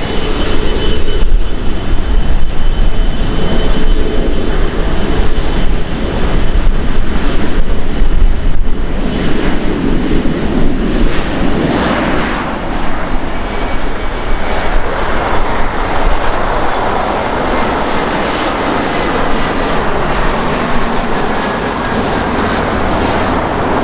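Airbus A380's four Rolls-Royce Trent 900 turbofan engines at taxi power as the airliner rolls past. The jet noise is a steady rush with a faint high whine that drifts slightly lower in pitch in the second half.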